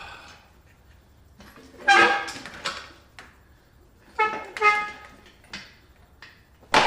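Engine stand's rotating head squealing twice, metal on metal, as the mounted Nissan CA18DET engine is turned over, with a few light clicks in between.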